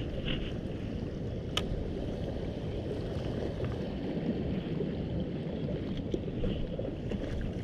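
Steady rush of seawater flowing around shoreline rocks, with one sharp click about a second and a half in.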